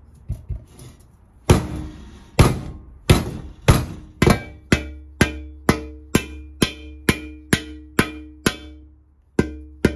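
A hammer tapping the steel of a two-stroke dirt bike expansion chamber to shape its factory radiator-clearance dent. There are about sixteen sharp metal strikes, each with a short ring, coming faster to about two a second, with a brief pause near the end.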